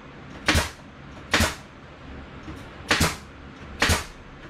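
Pneumatic nail gun firing nails into cedar fence boards: four sharp shots, a second or so apart, with a longer gap after the second.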